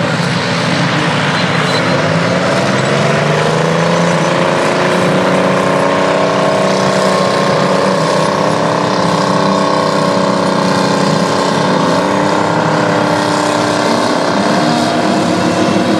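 Euclid TC-12 crawler bulldozer's twin GM 6-71 two-stroke diesel engines running under load. The engine note climbs over the first few seconds, holds, then wavers again near the end.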